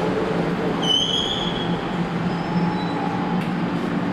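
Pullman-Standard R46 subway train slowing to a stop at a station platform, with a steady rumble of wheels and motors. A brief high squeal rises out of it about a second in as the train brakes.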